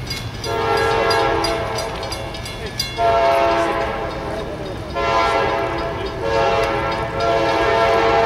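Diesel locomotive's air horn on an approaching CSX coal train sounding a series of blasts, a chord of several notes, with new blasts beginning about half a second, three seconds and five seconds in and the last one held to the end, over a steady low rumble.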